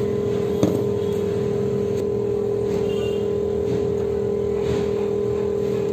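Steady hum of an LCD separator machine's vacuum pump running, with one brief click about half a second in.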